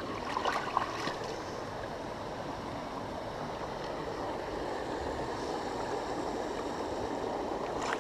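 Creek water running steadily, with a few faint clicks in the first second.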